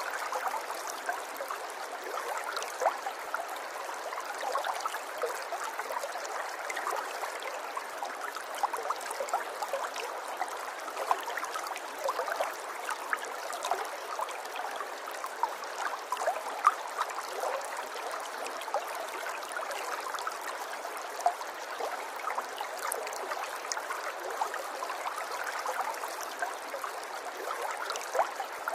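River water flowing over stones, a steady babbling and trickling with many small splashes and gurgles.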